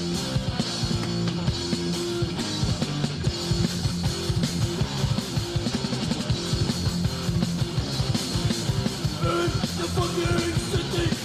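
Hardcore punk band playing an instrumental passage: distorted electric guitar, bass and fast drumming.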